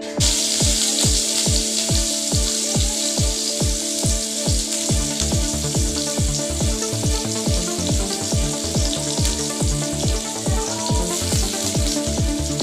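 Food sizzling steadily as it fries in a hot pan, over background music with a steady beat.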